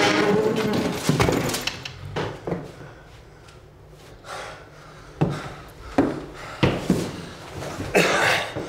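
Scattered wooden knocks and scrapes, about one a second: footsteps on a wooden floor and a wooden chair being moved. A man's heavy breathing comes near the end.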